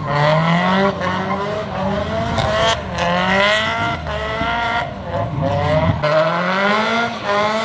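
Nissan Silvia S13 drifting: the engine revs climb and fall over and over as the driver works the throttle, with the rear tyres squealing and scrubbing under wheelspin. The low rumble drops away about six seconds in while the revs build again.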